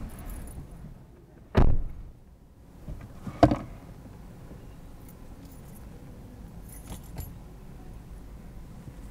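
A car door thuds shut about a second and a half in, followed about two seconds later by a sharper knock, with keys jingling faintly now and then inside the car.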